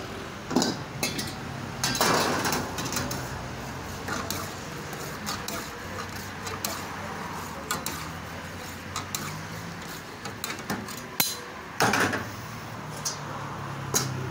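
Long metal tongs and a ladle clinking and scraping against a steel karahi wok as meat is stirred and turned, with a steady low hum beneath. There are two louder noisy bursts, about two seconds in and near the end.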